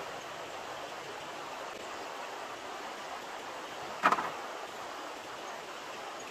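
Shallow stream running over rocks, a steady rushing hiss. About four seconds in, a single sharp knock with a brief rattle after it.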